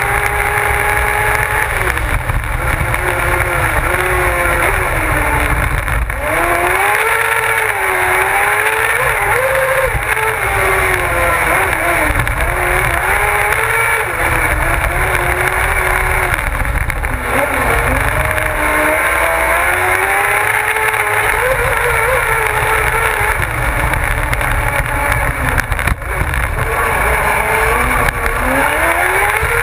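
Kart cross buggy's motorcycle engine racing, heard from on board: the revs climb and fall repeatedly through gear changes and corners, with sudden drops in pitch at each shift. Heavy wind and road noise on the mounted camera runs underneath.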